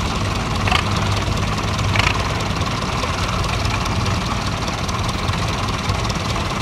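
Vintage Fordson Major tractor engine idling steadily, with a couple of brief clicks in the first two seconds.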